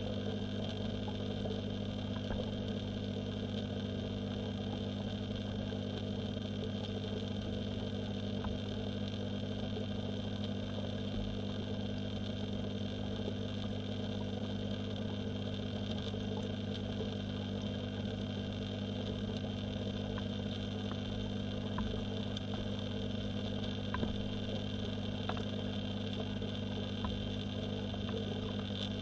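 Steady low mechanical hum with a few faint ticks, heard through a camera submerged in a garden pond.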